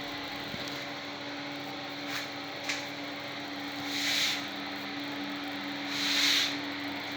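Sanding or rubbing on a surface during renovation work, with a steady low hum underneath. Two louder rasping strokes come about four and about six seconds in.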